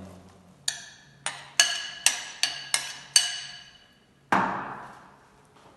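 A metal utensil knocked about seven times against the metal kazan or a bowl, each knock ringing briefly, then a short splashing rush as the boiled chickpeas go into the simmering soup.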